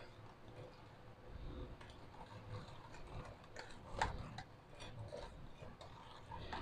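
Metal spoon stirring a thick coffee-and-sugar mixture in a ceramic bowl: faint, irregular clicks and scrapes against the bowl, with one louder tap about four seconds in.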